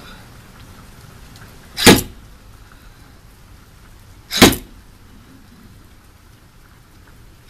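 Paintless dent repair slide hammer pulling on a hot-glued tab stuck to a car body panel: the sliding weight knocks sharply against the handle stop twice, about two and a half seconds apart, each blow tugging at the ding.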